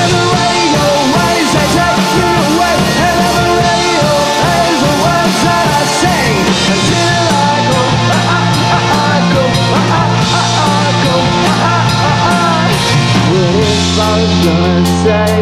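Rock band playing live: drum kit, electric guitars and bass guitar.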